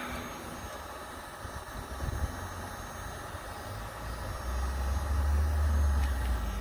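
Heat gun running with a steady blowing hiss, and a low rumble that swells about four and a half seconds in and dies away near the end.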